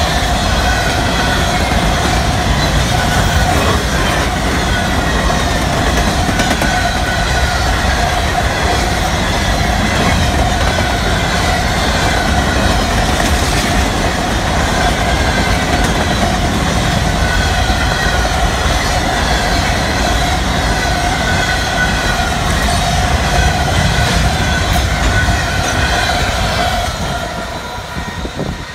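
A fast freight train of empty covered grain hopper cars rushing past: a loud, steady rumble and clatter of wheels on rail with a steady high ringing over it. It fades quickly near the end as the last car goes by.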